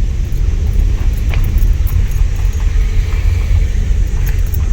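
Low, steady rumble of a vehicle driving along.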